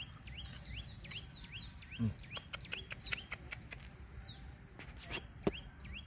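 A bird chirping fast and repeatedly, short falling and rising notes about three a second, thinning out after the first few seconds. Sharp clicks and rustles from hands moving through the grass and the wicker basket, the loudest about two seconds in and near the end.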